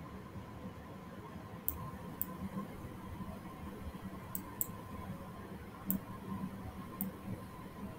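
Computer mouse clicking: about six short, sharp clicks at uneven intervals over a faint steady electrical hum.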